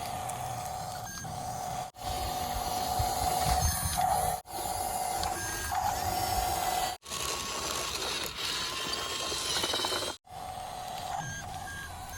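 Small electric motors and plastic gearboxes of radio-controlled toy construction vehicles whirring and grinding. The whine holds one pitch within each stretch and changes from stretch to stretch, and the sound breaks off abruptly about four times.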